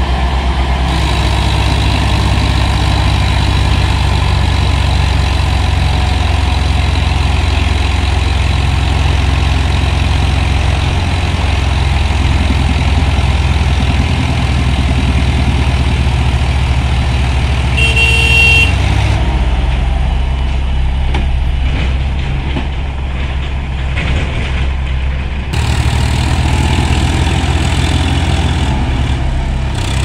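Swaraj tractor's diesel engine running under load as it pushes soil, with a short horn toot about eighteen seconds in. The engine note eases for several seconds after the toot, then picks up again.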